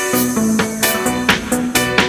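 Background music with a steady upbeat beat and bass line, funk-like.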